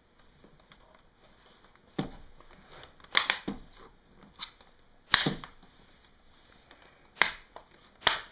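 Plastic screen bezel of an HP Pavilion G7 laptop being pressed back on, its clips snapping into place: a string of sharp, irregular clicks and snaps, about seven in all, the loudest about three and five seconds in.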